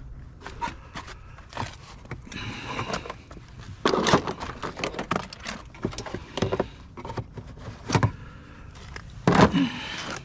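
A string of knocks, thumps and scraping from hard objects being handled and shifted, loudest about four seconds in and again just before the end.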